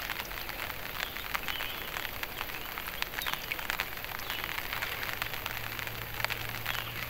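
Rain pattering steadily on the water, a dense scatter of small drop ticks.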